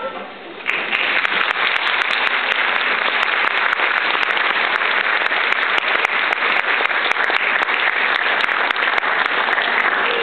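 Large audience applauding, breaking out suddenly about a second in as a sung piece ends and holding steady.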